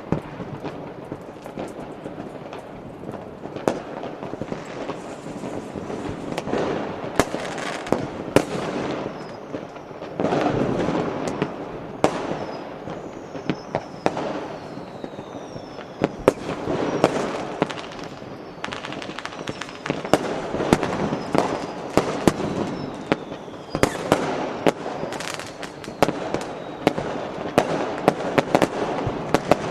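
Fireworks and firecrackers going off without a break: a dense run of sharp bangs over continuous crackling, with a few whistles falling in pitch about halfway through.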